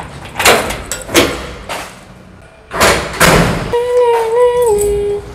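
Keys clicking in a door lock, then a metal-framed door banging shut with a thud. Afterwards a held tone sounds for about a second and a half, stepping in pitch twice before it stops.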